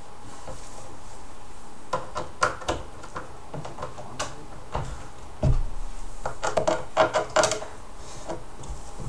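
Irregular knocks and clatter of particleboard furniture panels and fittings being handled and fitted together by hand, starting about two seconds in and busiest near the end.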